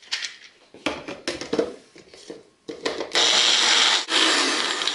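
Handling clicks and knocks as the cup is fitted onto a small personal blender's motor base, then the blender running in two pulses with a short break between, grinding soaked urad dal with very little water into a coarse paste.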